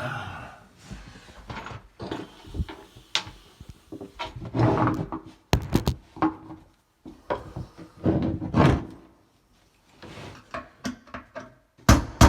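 Irregular thunks, knocks and clatter of tools and sink parts being handled. Near the end a hammer starts striking quickly, about three blows a second, on a screwdriver to turn the sink strainer basket's locknut tight.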